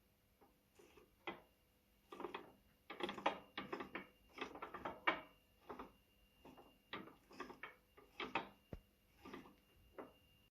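Irregular metallic clicking and clattering of car parts and tools being handled during rear axle assembly, busiest in the middle and thinning out near the end.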